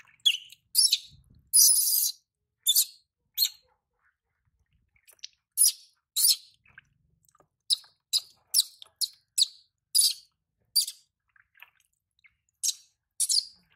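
Baby macaque giving a string of short, high-pitched squeals at irregular intervals while it is being bathed, a sign of its distress at the bath.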